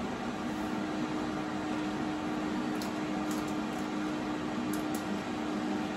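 HYSapientia 24-litre air fryer oven's fan running on after its preheat cycle has ended: a steady hum with a few faint ticks.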